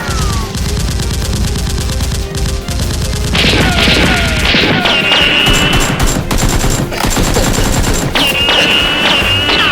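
Rapid automatic gunfire sound effects in dense volleys, game-style, with falling whistling tones between shots and background music underneath.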